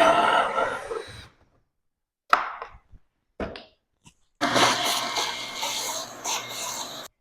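Power drill running as it bores into a cabinet door through a hinge jig, stopping about a second in; two sharp knocks follow, then the drill runs again for about three seconds and cuts off abruptly near the end.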